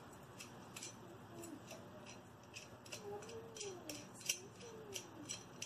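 Light, sharp clicking, about three or four clicks a second at an uneven pace, as a nut is turned by hand onto the threaded rod holding a ceiling fan's glass light bowl.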